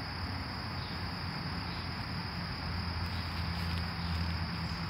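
A steady, unbroken high-pitched insect trill, crickets by the sound of it, with a low steady hum beneath it.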